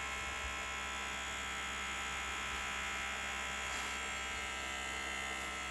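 Small electric motor running with a steady buzzing hum, even in level and pitch throughout.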